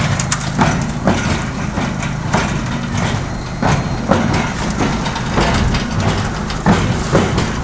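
Homemade concrete surfacing machine's motor running steadily with a low hum, with frequent irregular knocks and clatter.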